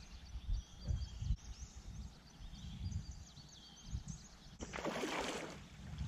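Outdoor wind buffeting the microphone in uneven gusts, with small birds chirping in the background. About five seconds in there is a brief burst of rushing noise.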